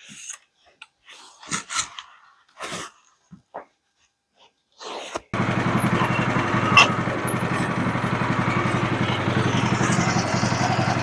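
A few short knocks and rustles, then about five seconds in the sawmill's gasoline engine starts and catches at once, running steadily.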